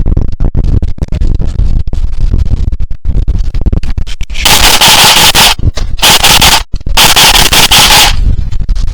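Wind buffeting the microphone with scattered clicks, then about four and a half seconds in, three bursts of full-auto airsoft fire: a long rattling burst, a short one, and another long one.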